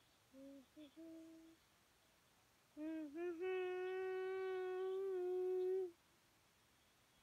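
A child humming: a few short notes, then one long held note of about three seconds that starts just before the halfway point and stops abruptly.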